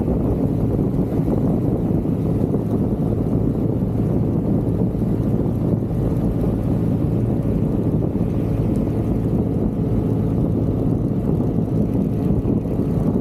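Vespa GTV 300 scooter underway at a steady speed: its single-cylinder engine drones low and even under a constant rush of wind on the microphone.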